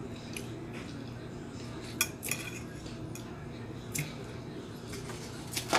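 Metal fork clinking against a plate as it picks meat off a fish head, four sharp separate clicks spread across a few seconds.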